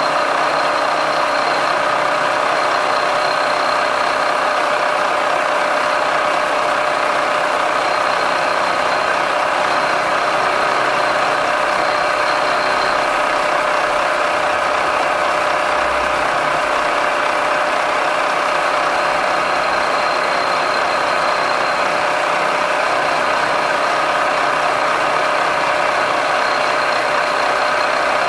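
Milling machine running steadily, its end mill cutting into the top of a metal block, fed by hand in a climb cut.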